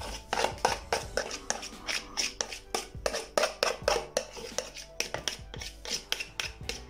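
Mashed banana being scraped and knocked out of a container into a mixing bowl: a run of irregular short knocks and scrapes, a few a second, with background music under them.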